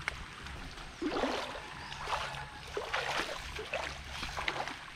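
Water splashing and sloshing in a river in irregular bursts, about once a second, over steady flowing water.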